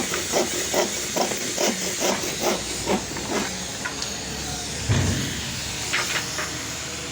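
Steady hiss under a run of about nine evenly spaced knocks, roughly two and a half a second, then a single heavier thump and a few sharp clicks near the end.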